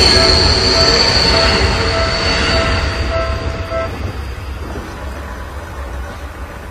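A Seibu Ikebukuro Line electric train passes over a level crossing, running loud with a rumble and a high steady wheel squeal, then fading after about three seconds. The crossing's warning bell rings in steady repeated strikes, a little under two a second, and stops about four seconds in.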